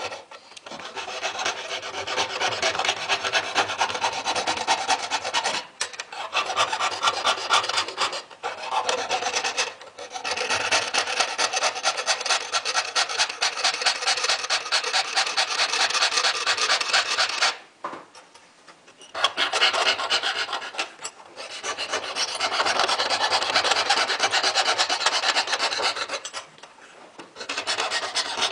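Jeweller's piercing saw cutting through sheet silver: fast, even back-and-forth strokes of the fine blade make a steady rasp. The sawing stops briefly a few times, with a longer pause about two thirds of the way in.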